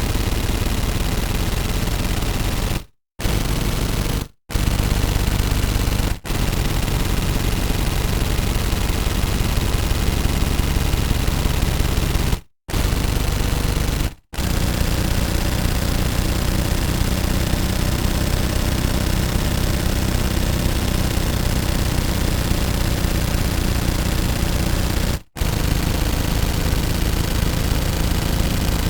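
Automatic gun firing in long, sustained rapid-fire bursts, broken by a few brief pauses, the longest run lasting about eleven seconds.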